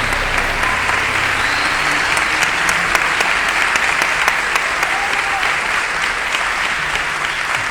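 A concert-hall audience applauding steadily, many hands clapping together.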